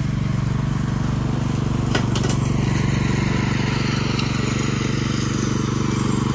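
Riding lawn mower's small engine running steadily while mowing overgrown grass, with a couple of sharp clicks about two seconds in.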